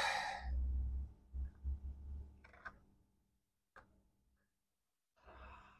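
Small handling noises on a repair bench as tools and the board are worked: a low bump in the first two seconds, then two short sharp ticks, and a brief hiss near the end.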